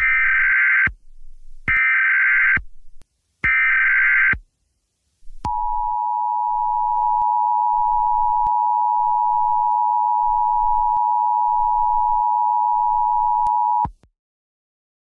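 Emergency Alert System weather alert from a TV: three short buzzing data bursts, then the steady two-tone attention signal held for about eight seconds before cutting off. It heralds a severe thunderstorm warning.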